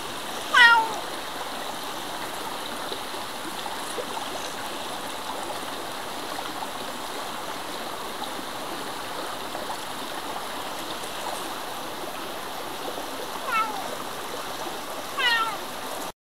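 A grey domestic cat meows three times over the steady rush of a mountain stream. The first meow, about half a second in, is the loudest; the other two come close together near the end, each falling slightly in pitch. The sound cuts off suddenly just before the end.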